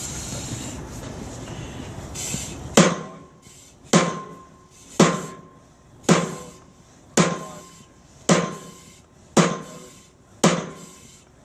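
Sledgehammer striking a steel strike box on a forcible-entry training prop. About three seconds in, after a steady hiss, eight evenly paced clanging blows land about once a second, each leaving a short metallic ring.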